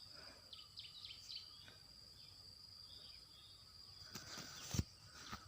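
Faint outdoor ambience: a steady high insect whine, with short high bird chirps in the first couple of seconds. A sharp knock sounds near the end.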